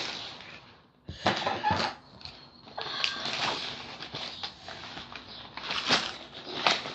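Things being handled and packed away into a bag: several short clatters and rustles, with pauses between them.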